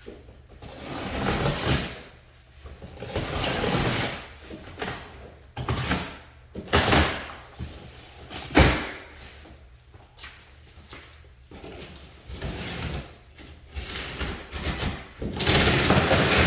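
A cardboard bike shipping box and its packing being handled: repeated scraping and rustling swells with a few sharp knocks, the loudest about eight and a half seconds in.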